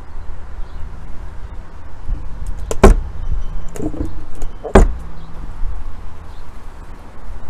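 Two sharp knocks, about two seconds apart, from a hand handling the newly fitted RV baggage door and its frame, with a few lighter clicks between them, over a steady low rumble.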